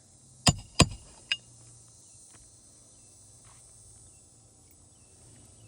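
Three sharp hammer strikes on metal, the first two about a third of a second apart and a weaker third half a second later, each with a brief metallic ring: nails being driven back into asphalt roof shingles with a roof snake.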